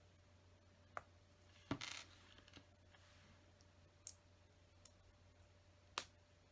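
LEGO bricks being handled and pressed together: a few sharp plastic clicks, about four in all, the loudest near two seconds in followed by a brief rustle of pieces.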